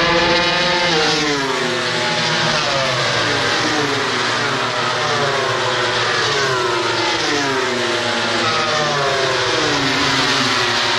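Several racing motorcycles at high revs, their engine notes overlapping, each pitch falling in long sweeps and jumping back up again and again as they pass.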